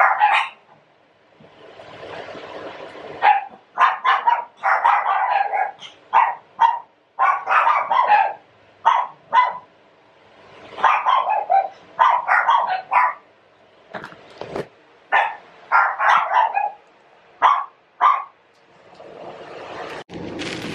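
A dog barking over and over in quick runs of short, sharp barks, with brief pauses between the runs.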